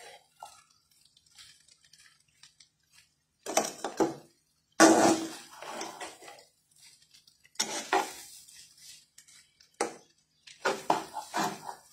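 Metal spatula scraping and clanking against a metal frying pan as fried rice is stirred and tossed, in irregular bursts of about a second with short pauses between, the loudest about five seconds in.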